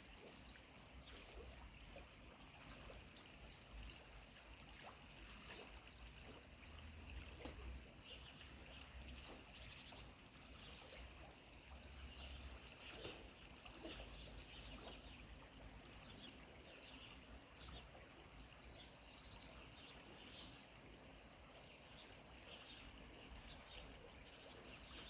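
Faint chorus of small birds chirping and calling. One keeps repeating a short high note every couple of seconds. A low rumble runs underneath.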